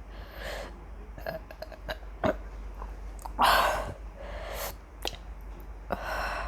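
A woman burping after drinking carbonated cola. The loudest burp comes about three and a half seconds in, with quieter breathy burps before and after it and a few small clicks between them.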